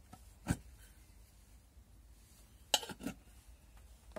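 Light clicks and clinks of hard objects being handled: one about half a second in, then two close together near the end.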